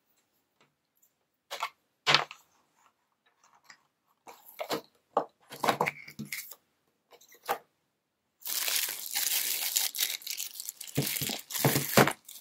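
A few scattered clicks and taps of plastic packaging being handled, then from about eight seconds in a dense, continuous crinkling of a plastic bag being picked up and handled.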